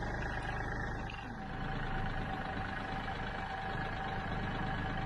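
Kioti tractor's diesel engine running steadily at idle.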